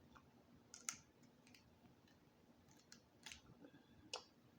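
Quiet eating sounds over near silence: a few short, sharp wet clicks, about a second in, after three seconds and again near the end.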